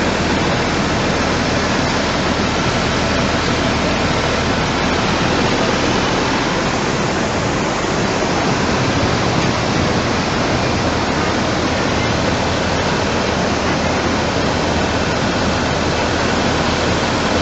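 Floodwater rushing past, a loud steady noise of fast-moving water with no break.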